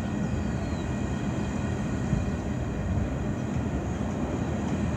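CN freight train's covered hoppers and tank cars rolling past on the rails, a steady low noise of wheels on track.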